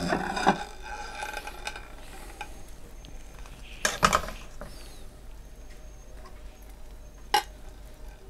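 Metal tongs lifting drained, freshly cooked egg noodles from a stainless steel pot onto a plate: soft, wet stirring and handling noise, with sharp clinks of the tongs against the pot near the start, about four seconds in, and again a little past seven seconds.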